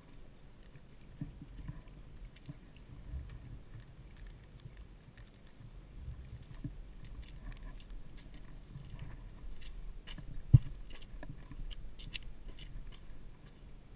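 Handling noise on a moving GoPro camera: a low rumble with a run of small clicks and ticks in the second half, and one sharp knock about ten and a half seconds in, as a small dog comes right up to the lens.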